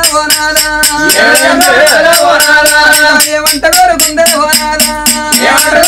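Oggu Katha folk music: a voice holds and bends long sung notes over a quick, steady beat of jingling percussion.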